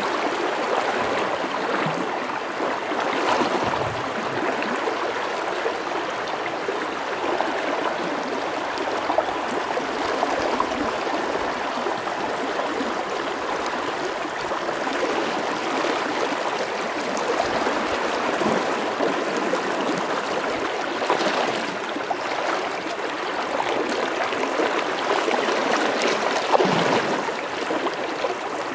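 River water running steadily over rocks and shallows: an even, constant rushing.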